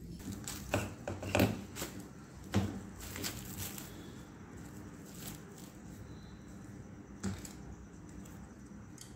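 Irregular crinkles and clicks of plastic cling film being handled and smoothed out on a granite countertop, the loudest about one and a half seconds in and again at two and a half seconds, then fewer and fainter.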